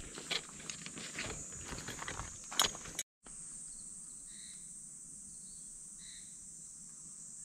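Close rustling and clicking as a tent pole is handled and stood up, with a sharp knock between two and three seconds in. After a brief cut, steady high insect buzzing carries on alone, with a few faint short chirps.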